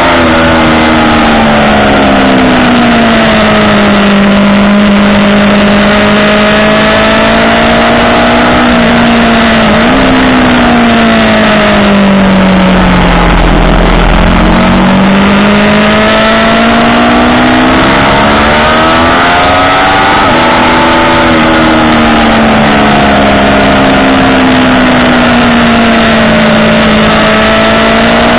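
Aprilia Tuono sport motorcycle's engine at track speed, heard from on the bike. Its revs sink and climb through the corners, with sudden jumps in revs about ten and twenty seconds in, over a steady rush of wind and engine noise.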